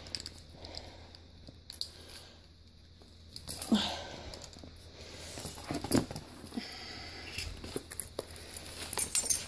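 Close, quiet rustling and small clinks from handling a dog in its chain collar and service vest, with a few short louder sounds about four and six seconds in.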